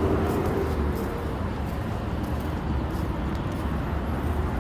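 Steady low rumble with a hiss over it: wind on the phone's microphone and tyre noise as an electric scooter rolls along brick paving.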